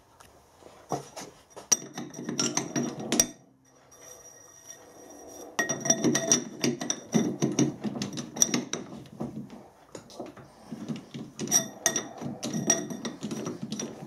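Three-jaw lathe chuck being wound with a chuck key to clamp a steel pipe ring: rapid metallic clicking and clinking of the key, scroll and jaws against the pipe, with a thin metallic ring. It comes in two spells, a short one about two seconds in and a much longer one from about halfway.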